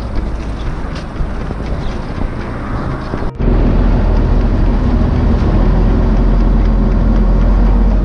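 Steady outdoor wind noise on the microphone. At a hard cut about a third of the way in it jumps to much louder, low, steady buffeting on a small boat on open water.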